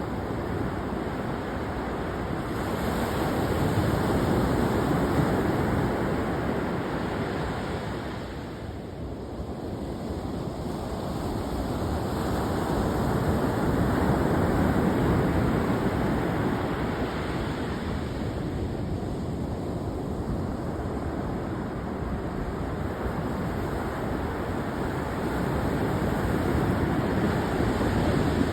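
Ocean surf, a continuous wash of waves that swells and ebbs in slow surges, three times over the stretch.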